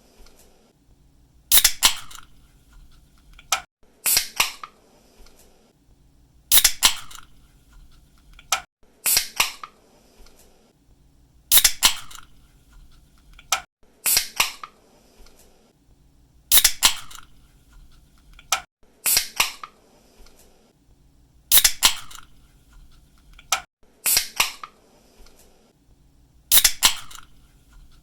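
Aluminium soda or energy drink cans being opened: the pull-tab snaps and a short hiss of escaping gas follows, repeated about every two and a half seconds, with a lighter tab click between some openings.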